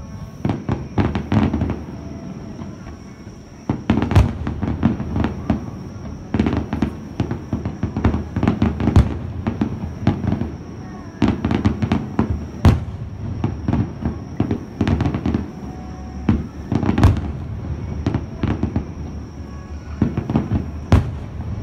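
Aerial fireworks shells bursting in a continuous barrage: many sharp booms, some in quick clusters, with crackling in between. The loudest bangs come about four, nine, thirteen, seventeen and twenty-one seconds in.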